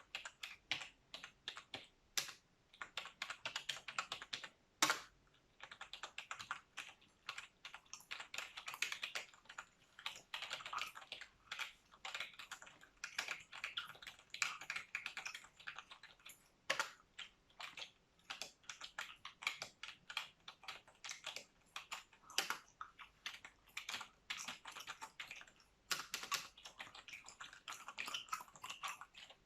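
Computer keyboard typing: a fast, irregular run of key clicks that never stops for long, with a few louder single keystrokes standing out.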